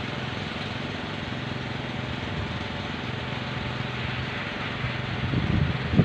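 Kolecer, Sundanese bamboo wind propellers on tall poles, spinning in strong wind with a steady droning, fast-pulsing hum over the rush of wind. Wind starts buffeting the microphone about five seconds in.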